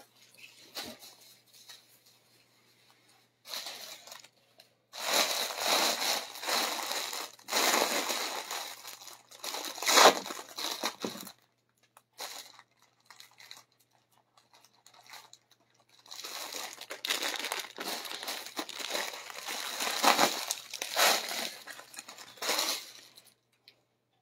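Rustling and crinkling of dupatta fabric being gathered up, folded and laid out by hand, in two long stretches with a quiet pause of a few seconds between.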